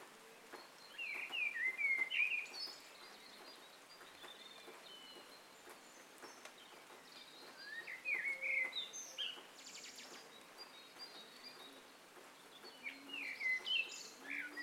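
Red-vented bulbul calling in three short bursts of quick notes that glide up and down: about a second in, around eight seconds in, and near the end, over a steady background hiss.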